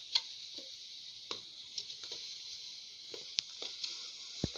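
Raw beef trotters being shifted by hand in a metal pressure cooker pot: scattered knocks and clunks of bone and hoof against the pot, with a heavier thump near the end, over a steady hiss.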